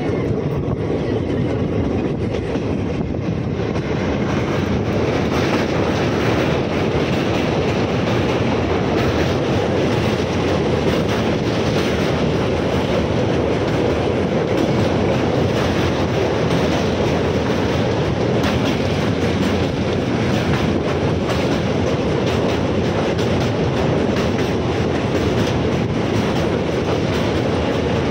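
Passenger train running at speed, heard from a carriage window: a steady rumble of wheels on rails with rapid clickety-clack from the rail joints.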